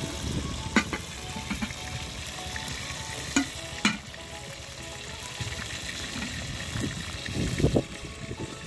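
Fish frying in hot oil in a pot, with a steady sizzle. A metal spoon clicks against the pot or plate a few times, with a louder knocking spell near the end.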